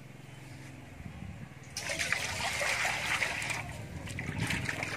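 Water poured from a plastic dipper into a metal basin, a loud rush starting about two seconds in. It is followed by lighter splashing as a hand stirs the water.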